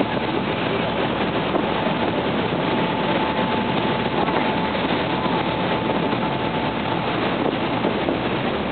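Steady rush of churning wake water along a moving boat, mixed with the boat's engine running at a constant pace and a faint steady high tone.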